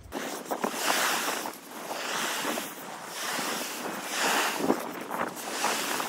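Waves washing on a sandy beach: a steady rushing hiss that swells and eases every second or two.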